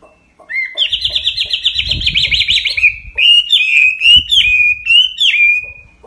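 Caged Chinese hwamei (họa mi) singing. It opens with a fast trill of rising notes, then gives a string of loud, separate slurred whistles about twice a second and ends on a held note.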